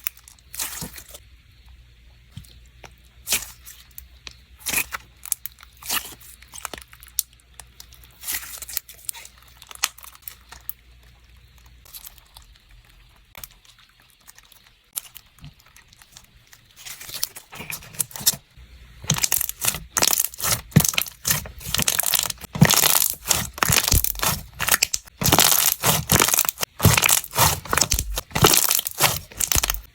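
Ice-cold clear slime being squeezed and stretched by hand, giving sticky clicks and pops. They are sparse at first, then come thick and louder from a bit past halfway.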